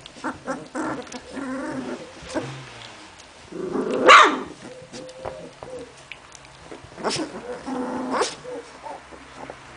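Hungarian vizsla puppies play-fighting, with low growls and short barks. The loudest bark comes about four seconds in, and two more come near the end.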